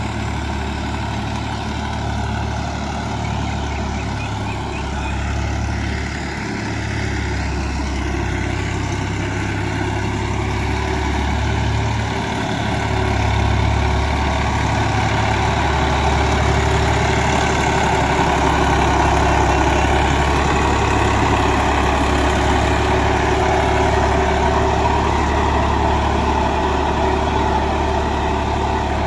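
Al-Ghazi tractor's diesel engine running steadily under load as it drags a rear levelling blade through loose soil, growing louder about halfway through.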